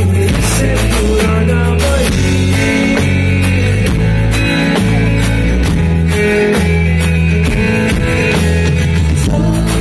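Rock band playing live and loud: drum kit, a steady bass line and guitars in an instrumental passage, with the singer's voice coming back in near the end.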